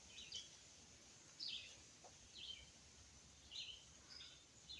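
Faint bird chirps: short notes sweeping downward, about one a second.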